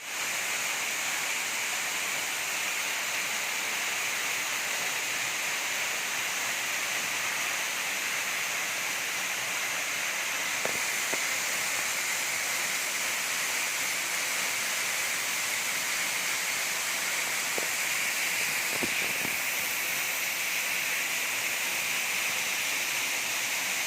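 Waterfall: falling water rushing steadily, a constant hiss-like roar with no let-up.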